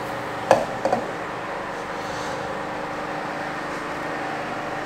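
Steady background hum with two light knocks about half a second and a second in, from the lid and tamper being lifted off a blender jar.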